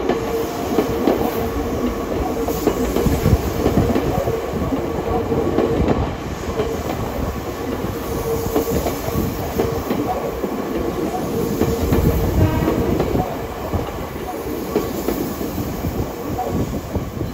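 Nankai 1000 series electric train pulling out and rolling past, its wheels clattering over the rail joints. A steady whine is heard from the train for about the first ten seconds.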